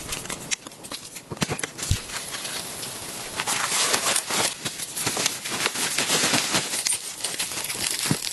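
Blizzard wind hissing in gusts, stronger in the middle, overlaid with dense irregular crackling and crunching clicks.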